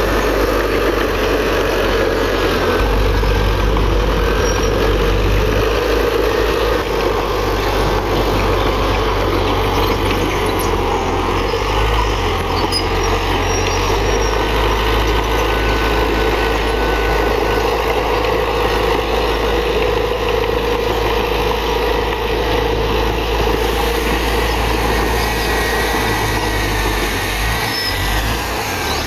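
Diesel engine of heavy earthmoving machinery running steadily, with a continuous low rumble.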